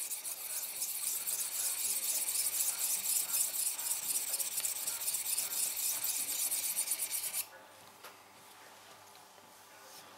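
A steel knife edge is stroked quickly and repeatedly along an EZE-LAP diamond sharpening file, a dry, rasping scrape that pulses with each stroke. It is hand honing of the edge, and it stops abruptly about seven seconds in.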